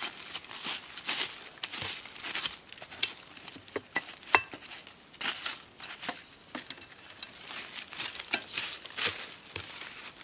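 Dry leaf litter and undergrowth rustling and crackling in irregular bursts as someone rummages through the forest floor by hand, with a few sharp snaps; the loudest is a single snap about four seconds in.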